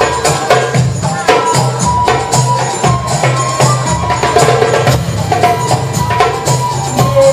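Music with a steady percussive beat.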